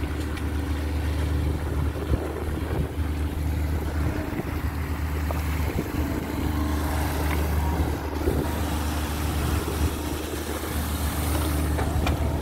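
Fishing boat's engine running with a steady low drone, over a hiss of sea water.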